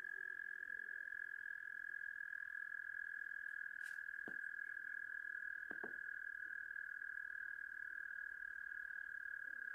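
A toad trilling: one long, steady, high-pitched trill with no break, and a few faint clicks about four and six seconds in.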